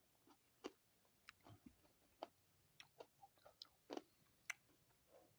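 Faint chewing: scattered wet mouth clicks, about a dozen, irregularly spaced.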